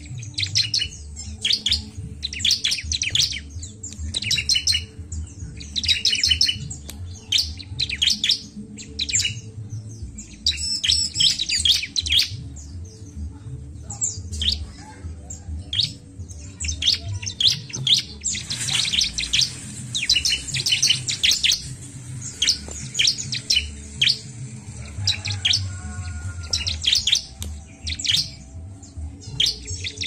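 Bar-winged prinia (ciblek) singing: quick runs of short, high-pitched chirps, repeated in bursts throughout, over a low steady hum.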